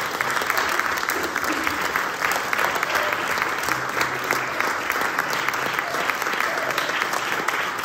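Audience applauding steadily in a concert hall: dense, even clapping.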